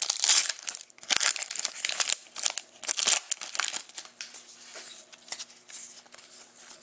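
Foil wrapper of a trading-card pack crinkling and tearing as it is pulled open. After about four seconds the crinkling dies down to quieter rustling as the cards are handled.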